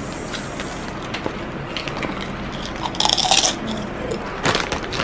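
Paper takeaway bag rustling and crinkling as it is handled, with small clicks and a brief louder crinkle about three seconds in.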